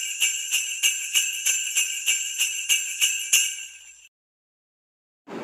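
Jingle bells shaken in a steady beat, about three shakes a second, fading out after about four seconds.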